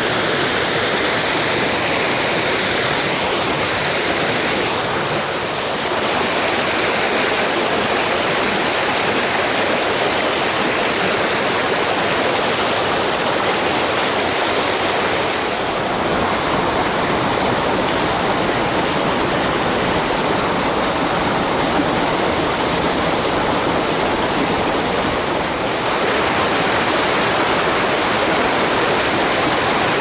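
Mountain stream water rushing steadily over rocks, a dense continuous roar of flowing water. Its tone shifts slightly a couple of times.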